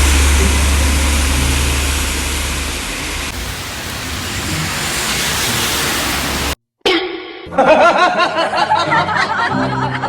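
Road traffic: a heavy vehicle's engine rumble and road noise as it passes, the deep rumble easing after about three seconds. After a sudden cut, a short burst of wavering, chirping pitched sounds like a laughter sound effect.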